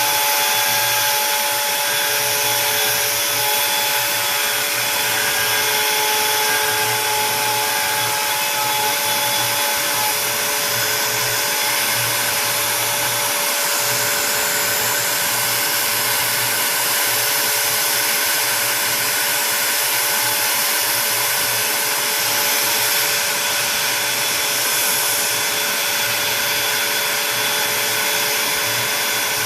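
Onefinity Woodworker CNC router's spindle running at speed as the machine cuts out a wooden sign: a steady motor whine over a constant hiss, with one of the whining tones dropping out about a third of the way in.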